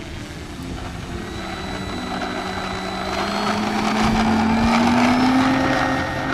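Electric RC model airplane, an E-flite Carbon Z Cessna 150 with a 50-size brushless outrunner, flying past. The motor and propeller whine swells to its loudest about four seconds in and then eases off, its pitch rising slowly.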